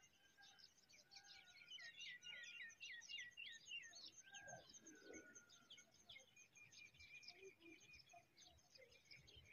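Several birds chirping and singing faintly, with a quick run of repeated falling notes about two seconds in and a held whistled note later on.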